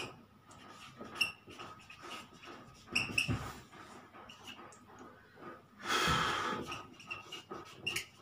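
Dry-erase marker writing on a whiteboard: short squeaks and light taps as the letters are drawn. About six seconds in, a louder breath is heard.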